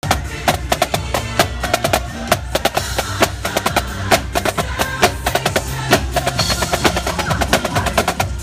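Yamaha marching snare drums played by a line of drummers: fast, dense stick strokes and rolls over parade music with a melody.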